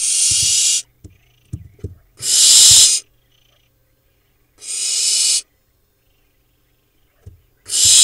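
Barn owl nestlings giving long hissing calls, four in all, each just under a second, about every two and a half seconds. A few soft low knocks come between them.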